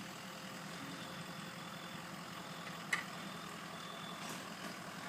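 Truck engine running steadily, with one sharp click about three seconds in.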